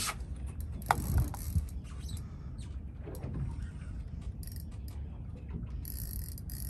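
Fishing reel buzzing in short bursts from about four and a half seconds in, as line is worked during the fight with a hooked queenfish. A few knocks about a second in, over a steady low rumble.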